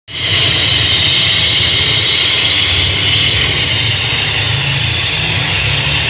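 DJ speaker tower on a truck playing loud during a sound check: a steady deep bass rumble under a loud hissing wash, with no clear beat or tune.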